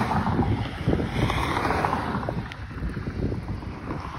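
Wind buffeting a phone's microphone on a moving bicycle: an uneven, gusty rush of low noise that swells and dips.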